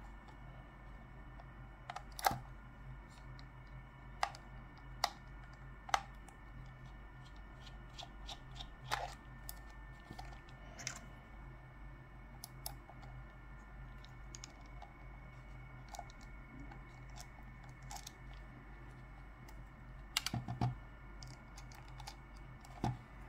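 Scattered small plastic clicks and taps of a Logitech MX Master mouse being handled and worked on, one every second or few, with a short cluster of clicks about twenty seconds in, over a faint steady hum.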